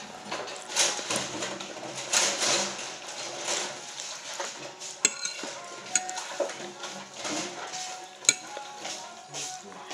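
Metal fork scraping and clinking against a ceramic plate while eating, with a few sharp clinks, one about five seconds in and one about eight seconds in.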